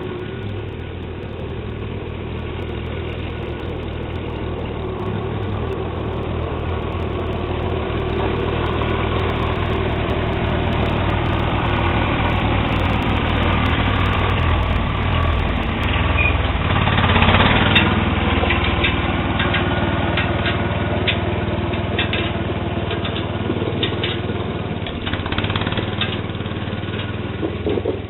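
Sears Suburban SS12 garden tractor's engine running steadily while plowing snow, growing a little louder over time. A bit past the middle comes a louder stretch of scraping noise, and scattered sharp clicks follow.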